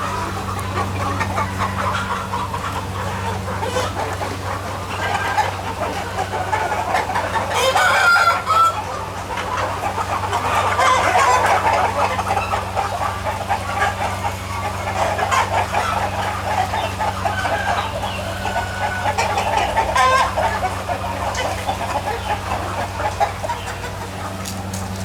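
A large flock of chickens clucking continuously, with a rooster crowing; the loudest call comes about eight seconds in. A steady low hum runs underneath.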